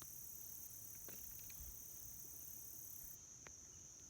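Insects chirring in a steady, high-pitched drone. A second, higher hiss of insect noise drops out about three seconds in, and a few faint ticks sound over it.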